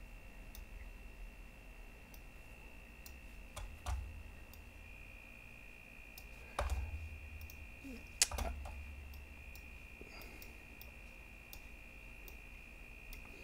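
Quiet, scattered computer mouse clicks, with a few louder clicks or knocks at the desk, over a faint steady high whine.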